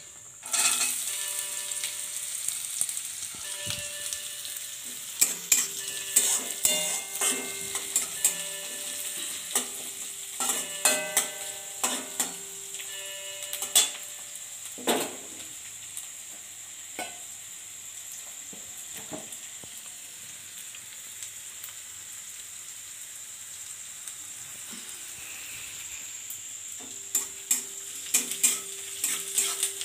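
Chopped onion dropped into hot oil in a steel kadai, sizzling as it fries, with a metal spatula clinking and scraping against the pan as it is stirred. The stirring pauses around the middle while the sizzle goes on, and starts again near the end.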